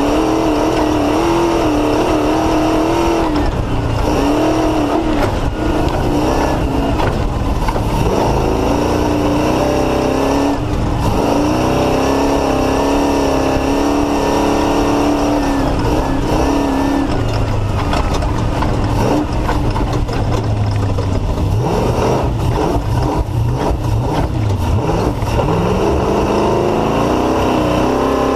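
Off-road race car's engine running hard at race pace, its pitch rising and falling with throttle and gear changes, over constant noise and scattered sharp knocks.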